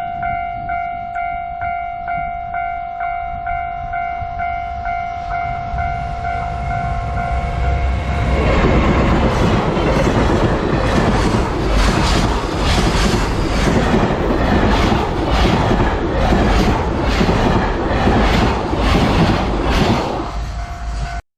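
A Japanese level-crossing warning bell rings in an even, repeating ding. About eight seconds in, a freight train hauled by a JR Freight EF210 electric locomotive passes close by, its wagons' wheels clattering rhythmically over the rail joints and drowning out the bell. The passing ends about twenty seconds in, with the bell still faintly ringing.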